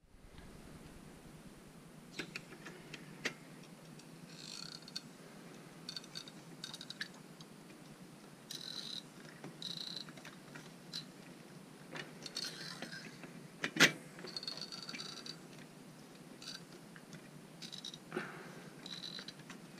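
Hand pop-rivet gun being squeezed repeatedly against a steel muffler end cap, its handles giving short squeaks and metallic clicks. Partway through comes one loud sharp snap, the sound of a rivet's mandrel breaking off as the rivet sets.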